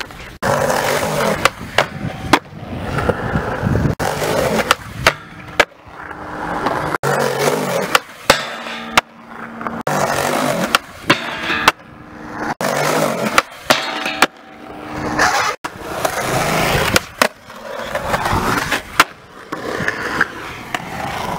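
Skateboard wheels rolling over concrete in long, loud runs, broken by many sharp clacks of the board and trucks striking the ground.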